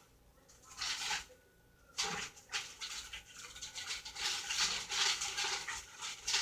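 Plastic freezer bags rustling and crinkling as they are handled. There is a short burst about a second in, then steady crackling from about two seconds on.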